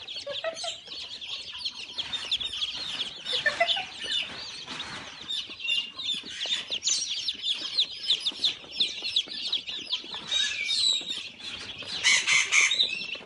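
A crowd of newly hatched chicks peeping nonstop: many short, high, falling peeps overlapping one another.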